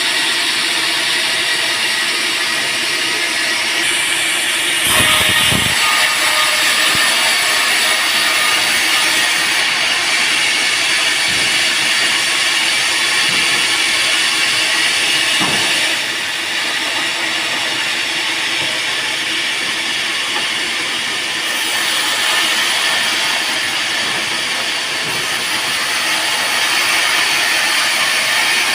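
Band sawmill running and cutting through teak wood: a steady, loud, hissing saw noise whose tone shifts abruptly several times.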